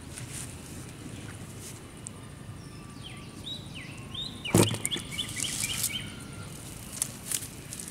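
Birds chirping, with a quick run of short repeated calls, over steady outdoor background noise. About halfway through comes one loud sharp thump, which fits the catfish being dropped into a plastic basin of water.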